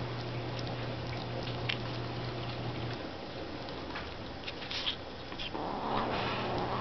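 Two kittens eating chopped hard-boiled egg off a paper plate: small wet chewing and smacking clicks. Under them is a steady low hum that stops about three seconds in, and a louder rushing noise comes in near the end.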